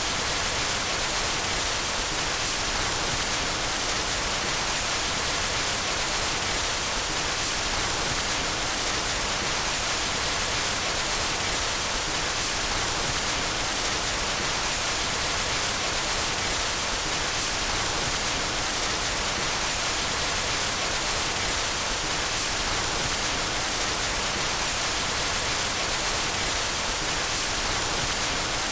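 Steady white noise: an even, unbroken hiss, brightest in the treble, with no change in level.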